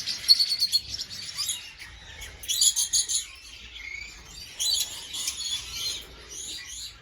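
Lovebirds chirping, a chatter of short, high calls that comes in bursts several times.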